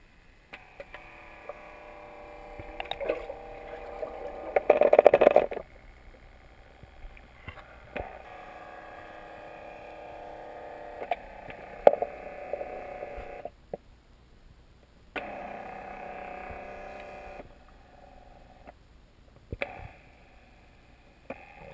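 Small 9-volt DC propeller motors on a homemade underwater ROV whining at a steady pitch, running in spells of a few seconds and cutting on and off with clicks as they switch. A louder noisy burst comes about five seconds in.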